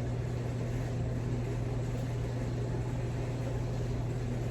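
A steady low mechanical hum that holds one pitch and level.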